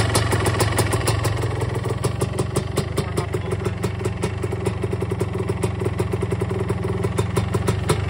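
1977 Yamaha IT250's single-cylinder two-stroke engine idling steadily with an even run of firing pulses. It runs quietly, without piston slap, on a freshly rebuilt top end with .002" piston-to-cylinder clearance.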